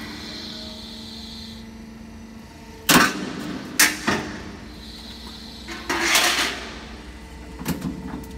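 C purlin roll forming machine running with a steady hum from its motor and hydraulic pump. Its hydraulic punching and cutting press strikes with sharp metal clanks about three seconds in, twice more a second later, and again near the end, with a loud hissing rush around six seconds.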